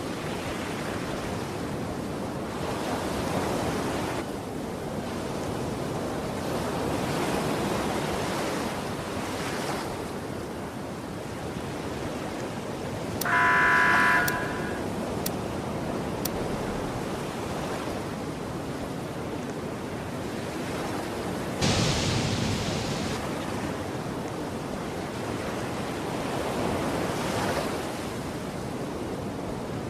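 Waves washing in steadily, swelling and easing every few seconds, with wind on the microphone. A short pitched sound comes about 13 seconds in, and a sudden louder wash or crash about 22 seconds in.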